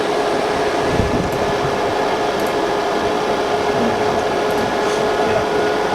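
Steady whir of a cooling fan, with a constant hum under it.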